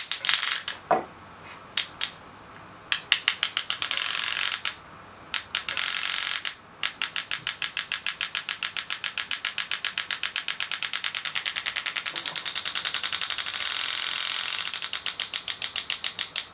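Solenoid engraving handpiece of a Super EZ Graver firing as a fast, even train of clicks, several a second, pulsed by the Arduino PWM controller. The clicking stops and starts a few times in the first seven seconds, then runs steadily.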